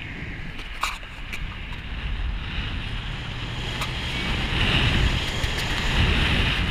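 Wind buffeting the microphone of a camera mounted outside a moving vehicle, over tyre and road rumble on pavement. The rumble grows louder about four and a half seconds in, and there is a short click about a second in.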